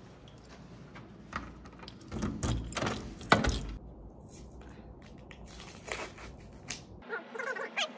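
Crinkling, rustling handling noise with scattered sharp clicks and crackles, loudest from about two to three and a half seconds in.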